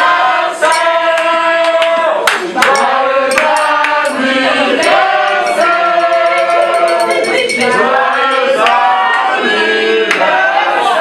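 A group of voices singing together loudly, holding long notes, with a few sharp hits about two seconds in.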